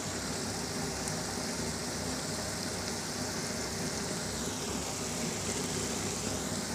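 Thick curry simmering in a wok on the stove, a steady sizzling and bubbling.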